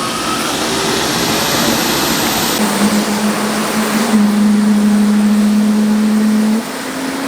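Jet aircraft turbine engine running loud: a high whine rising in pitch at the start, then a steady dense hiss with a few low held hums from about a third of the way in.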